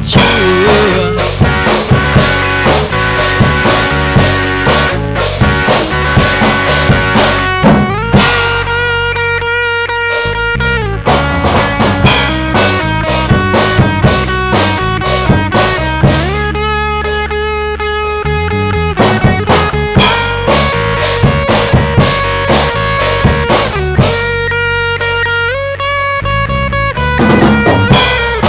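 Rock band instrumental break: a lead guitar plays long held notes that bend up and down in pitch, over drum kit and bass.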